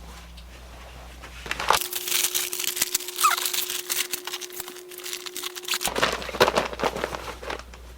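Rustling and crinkling of a curtain and its plastic packaging being handled, busiest from about two seconds in to about six seconds in.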